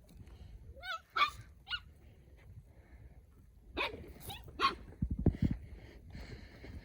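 Young canids at play giving short high, wavering yelps and whines, twice in quick runs, followed by a few dull thumps.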